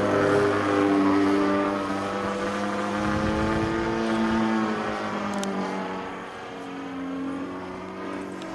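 Radio-controlled model aerobatic plane's motor and propeller droning steadily as it flies overhead, the pitch slowly drifting down and up as it passes. It grows fainter from about six seconds in as the plane moves further away.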